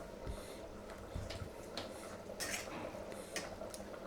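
A spoon stirring chicken curry in a kadai, scraping and clinking against the pan in a series of irregular strokes, about six in four seconds.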